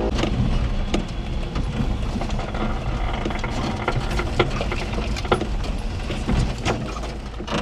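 1992 Daihatsu Hijet mini-truck's 660cc three-cylinder engine running, heard from inside the cab while driving over rough yard ground. Scattered knocks and rattles sound over a steady low rumble.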